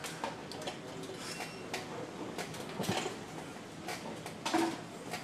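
Irregular light clicks, knocks and rattles of car-seat frames and headrests being handled and fitted by hand, with a slightly louder knock about four and a half seconds in.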